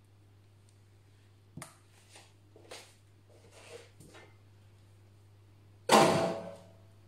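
Kitchen handling sounds at a frying pan: a few soft taps and knocks as slices are set into the oil, then a louder sudden clatter about six seconds in that fades quickly with a brief ringing.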